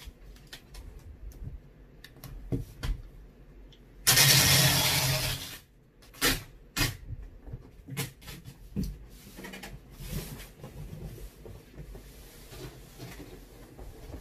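Packing tape pulled off a handheld tape dispenser across a cardboard box, with one loud screeching pull about four seconds in that lasts about a second and a half. Around it come short knocks, taps and rubbing as the box is handled and the tape pressed flat.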